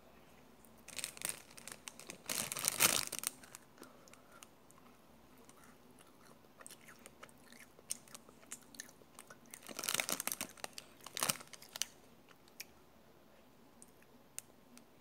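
Close-up crunching and chewing of a crisp yellow macaron, its shell crackling under the bites: the loudest crunches come about two to three seconds in and again around ten seconds, with small chewing clicks in between.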